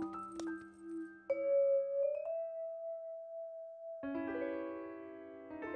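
Background cartoon music. A few short notes are followed by a long held note that slides up slightly, then a sustained chord comes in about four seconds in.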